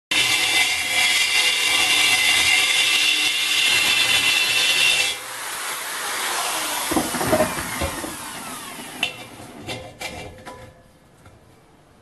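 Corded electric drill driving a mounted grinding stone, grinding out the edge of a hole in the steel wall of a gas cylinder for about five seconds with a high, steady whine. The stone is then pulled clear and the drill winds down, its pitch falling until it stops about nine seconds in, followed by a few knocks as it is set down.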